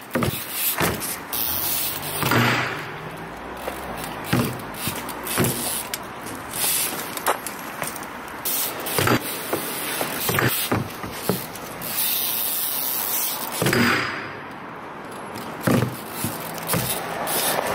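BMX bike runs at a concrete ledge: tyres rolling on concrete, a peg scraping along the ledge on grind attempts, and sharp knocks and clatters of the bike dropping and landing, several times over.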